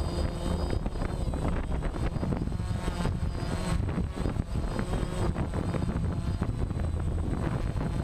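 Remote-control helicopter's motor and rotor running steadily, heard from the camera strapped to the helicopter itself.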